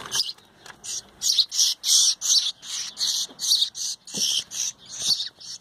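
Fledgling birds chirping: a fast, even series of short high calls, about three a second, starting about a second in.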